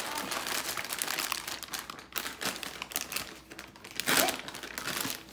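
Clear plastic bag crinkling as hands handle it and pull it open around a plush doll, in uneven bursts of rustling, loudest about four seconds in.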